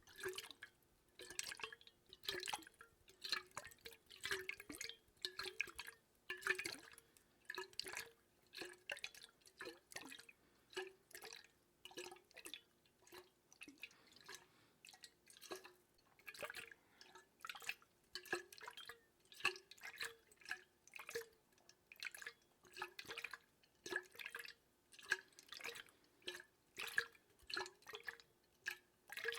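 Water dripping, close up: irregular single drops, about two or three a second, each a short plink with a brief hollow tone.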